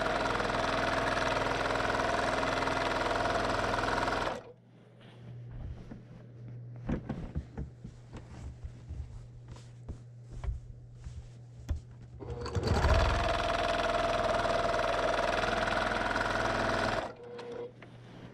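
Brother PQ1500SL straight-stitch sewing machine running fast while free-motion quilting. It stops about four seconds in, leaving a low hum and scattered small knocks for several seconds. It then runs again for about four seconds and stops near the end.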